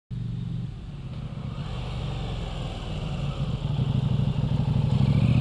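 KTM 790 Adventure R's parallel-twin engine running under way on the road, its note growing steadily louder, with a rushing hiss of wind over it.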